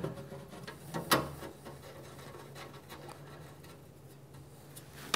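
Small screws being driven by hand with a screwdriver into a plastic fan-filter grille on a sheet-steel enclosure: soft scratching and rubbing as the screwdriver turns, with one sharp click about a second in.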